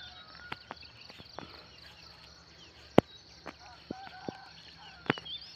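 Early-morning farmland ambience: a steady high insect drone with scattered bird chirps and short whistles, and a few clicks, one sharp click about three seconds in.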